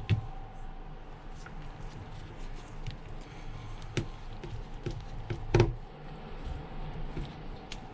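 Scattered small clicks and taps of tools and phone parts being handled, the sharpest just after the start and a little past halfway, over a low steady hum.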